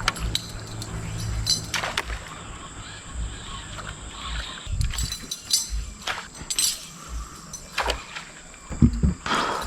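Irregular knocks and clinks of gear in a small fishing boat, a few each second, with a low steady hum in the first second or so.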